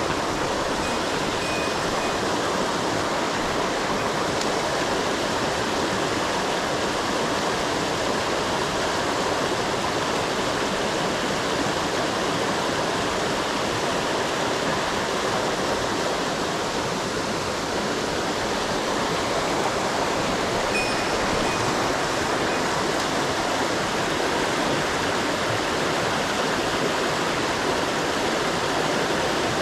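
Mountain stream water rushing loudly and steadily.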